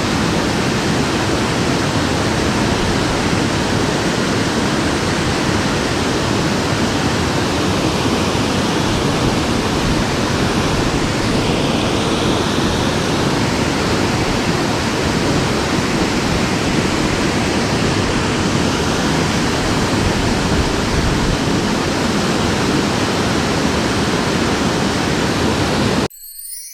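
Water pouring over a sabo dam on a mountain stream: a loud, steady rush. It cuts off suddenly near the end.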